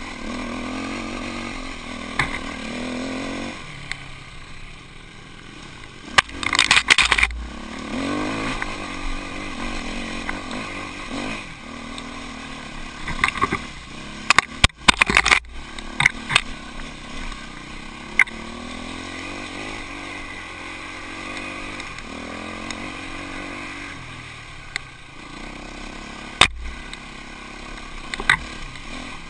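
Off-road motorcycle engine running on a rough dirt trail, its pitch rising and falling with the throttle. Loud knocks and rattles come as the bike jolts over bumps, in a cluster about six seconds in, again about halfway through, and once or twice near the end.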